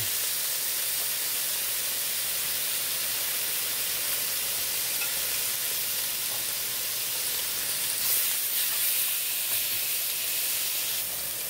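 Marinated short ribs sizzling steadily on a hot stovetop Korean barbecue dome grill, getting briefly louder about eight seconds in.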